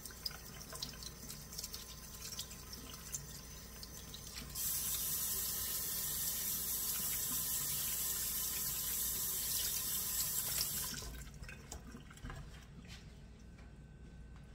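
Kitchen sink faucet turned on, water running hard into the sink for about six seconds, then shut off. Light handling clicks come before and after.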